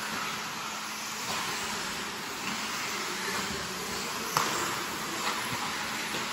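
A field of radio-controlled 4WD buggies racing: a steady high buzzing whine of many small motors and tyres on the track. A single sharp knock, the loudest moment, comes a little over four seconds in.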